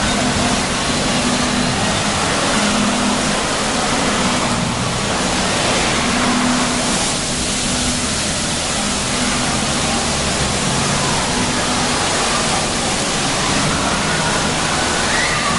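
Steady rushing hiss of water spraying and falling from water-play features, a loud even wash of noise.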